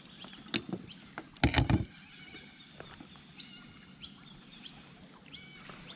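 Small birds calling over and over with short, quick, falling chirps. About a second and a half in comes a brief clatter of knocks from handling on the aluminium boat deck, the loudest thing heard.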